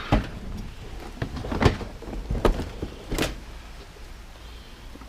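Scrap metal being shifted and packed into a loaded vehicle: about five separate knocks and clunks spread over a few seconds, the loudest near the middle.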